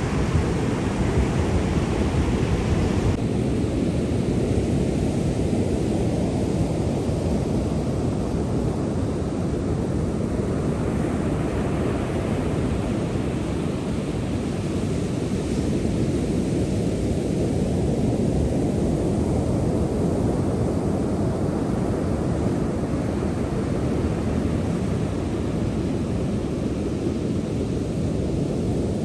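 Ocean surf: a steady low rush of waves with slow swells as they wash in and draw back every several seconds.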